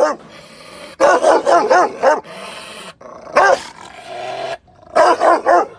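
Rottweiler barking angrily in quick volleys of several loud barks, with short pauses between the volleys.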